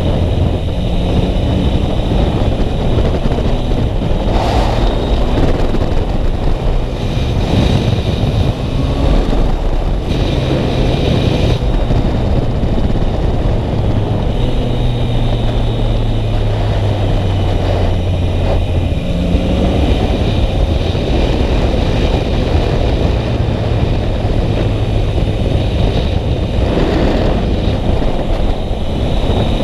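Yamaha MT-09's three-cylinder engine heard on board while riding, its pitch rising and falling a few times with the throttle, under a constant rush of wind noise on the microphone.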